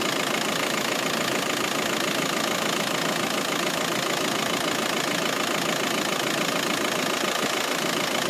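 VW Passat B6's 1.9 TDI four-cylinder turbodiesel idling steadily, heard close up under the open bonnet.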